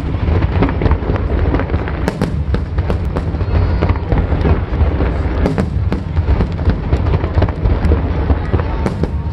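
Aerial fireworks shells bursting in quick succession in a display finale: many sharp bangs over a continuous low rumble of booms.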